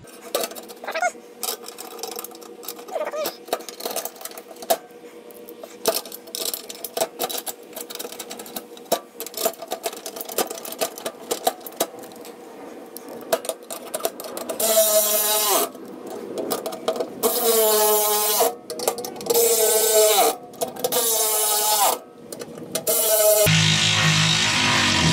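Cordless ratchet running in about five short bursts of about a second each, driving in the skid plate access cover's bolts, after some light clicking and rattling as the metal cover is handled. Background music plays underneath.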